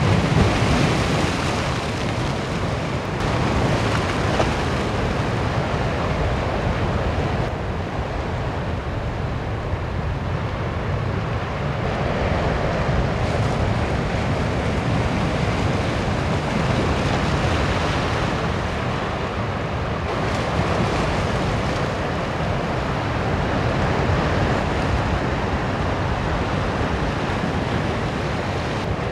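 Rough sea surf breaking and churning continuously against rocks, swelling and easing from moment to moment, with strong wind and a low wind rumble on the microphone.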